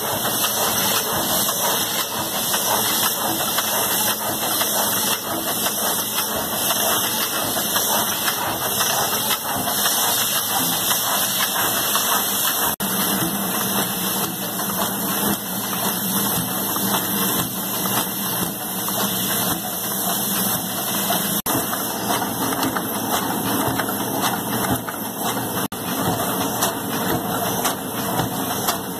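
CD screen-printing and duplication machinery running, a steady mechanical noise with a constant hiss and a few brief breaks.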